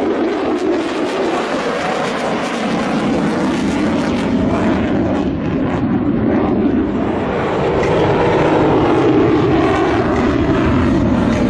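Fighter jet engine noise: a loud, steady rush that grows a little louder about eight seconds in.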